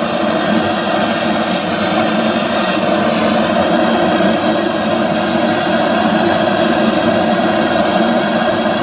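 A steady mechanical drone, like a motor running, unchanging throughout, with a hiss above it.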